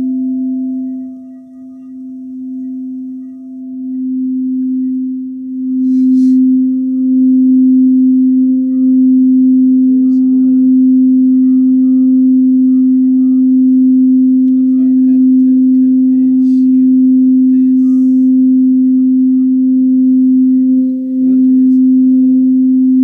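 Singing bowl being rimmed: one sustained low tone that dips and swells over the first few seconds, then holds steady and loud.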